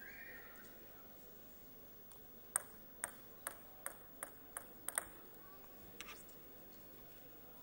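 Table tennis ball bouncing, a run of about eight sharp ticks, roughly three a second, then a single fainter one, as a player bounces the ball between points before serving. A faint hall murmur lies underneath.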